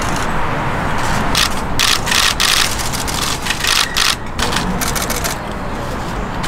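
Ring-tailed lemurs rummaging in straw-stuffed Christmas stockings: several short bursts of rustling and crackling over a steady low background rumble.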